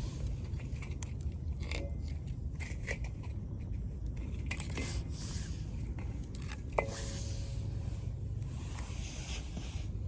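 Wood fire crackling and popping in a Coleman Fire Desk fire pit, with irregular sharp snaps over a steady low rumble; a single brief ringing ping about seven seconds in.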